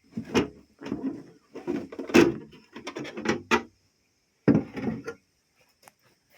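Irregular scraping and rubbing noises: a quick run of short strokes, then one more about four and a half seconds in.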